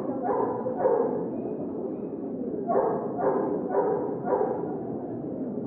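A dog barking in short runs: two barks soon after the start, then four in quick succession about three seconds in, over the steady background noise of a crowded hall.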